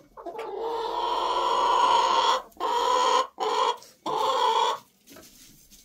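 Domestic hen squawking loudly close by: one long drawn-out squawk followed by three shorter ones.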